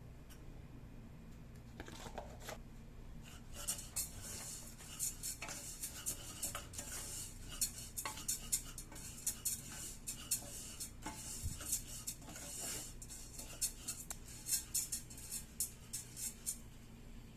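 Kitchen utensils and cookware clinking and scraping: a long run of light, irregular clicks and scrapes over a low steady hum.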